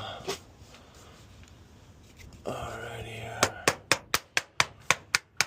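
Hammer tapping a trim nail into aluminum trim wrap: quick, even, sharp strikes about four a second, starting about three and a half seconds in.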